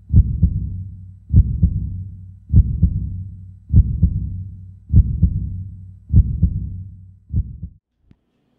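Heartbeat sound effect: seven slow lub-dub double thumps about 1.2 s apart over a low steady hum, dying away shortly before the end.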